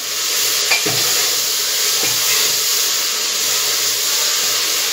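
Potato, eggplant and tomato sizzling as they fry in oil in an open pressure cooker, stirred with a metal ladle. The ladle clicks against the pot about a second in and again about two seconds in.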